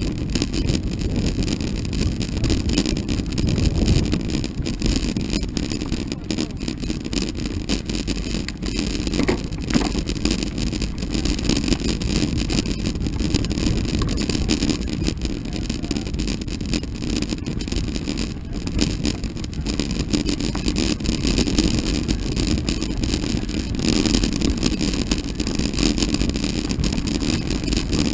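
Steady rumble of mountain bike tyres rolling on a gravel road, mixed with wind buffeting the microphone.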